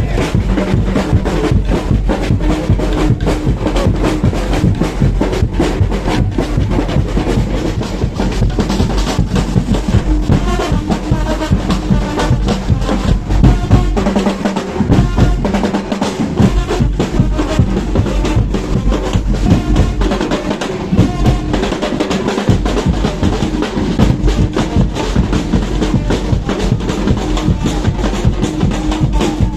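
Loud carnival street music driven by drums, a dense steady beat of drum strikes over a low bass line. The deepest bass drops out briefly twice, around the middle.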